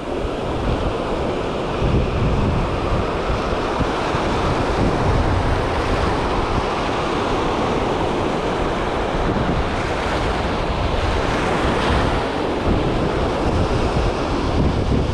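Surf washing over rocks at the waterline, a steady rushing of seawater, with wind rumbling on the microphone.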